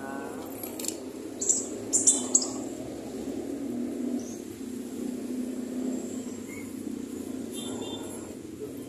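Plastic bags crinkling in short sharp bursts as they are handled, a cluster about two seconds in and again near the end, over a steady low background rumble.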